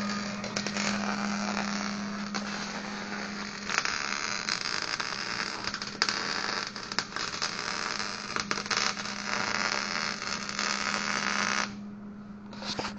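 Arc welding: a steady crackling sizzle with sharp pops, stopping suddenly near the end, as a weld on the steel logo panel is finished. A low steady hum runs underneath.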